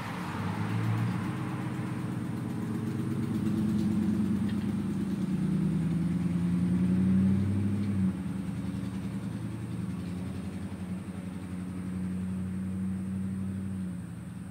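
A motor engine running steadily at a low pitch. It grows a little louder from about four seconds in and drops back about eight seconds in.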